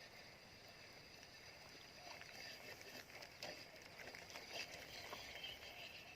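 Near silence: faint outdoor background with a steady high hum, and a few soft clicks and rustles from about two seconds in.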